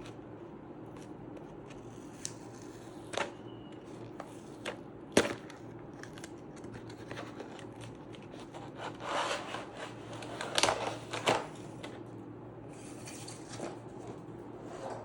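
Plastic keycaps and a mechanical keyboard being handled: scattered light clicks and rubbing. A sharp click comes about five seconds in, and a busier stretch of scraping and clicks comes a few seconds later.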